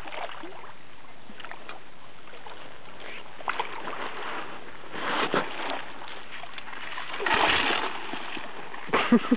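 Water splashing as a big catfish thrashes at the surface while it is netted, in two louder bursts about five and seven seconds in, with a few sharp clicks around them.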